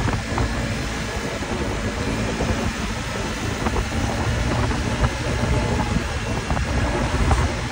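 Motor scooter riding along a road: a steady engine drone mixed with road and wind noise, heavy in the low rumble, with a few small ticks.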